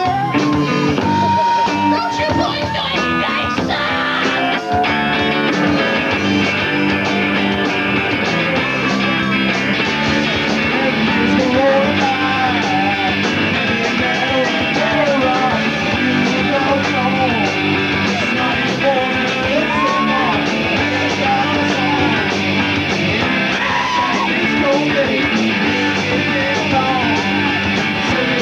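Live rock band playing, electric guitar to the fore over drums and bass.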